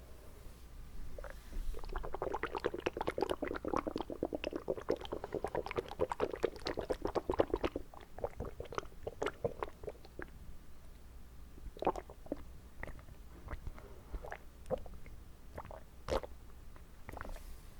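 Water swished around inside a person's mouth, close to the microphone. It starts with several seconds of fast, wet sloshing clicks and thins out to scattered single wet clicks and pops.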